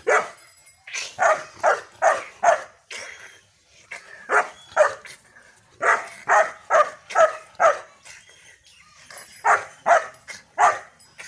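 Five-month-old German shepherd puppy barking repeatedly in quick runs of three to five barks, with short pauses between the runs.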